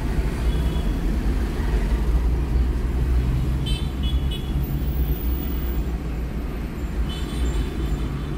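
A car driving in city traffic: a steady low engine and road rumble, with a few short, high-pitched car-horn toots.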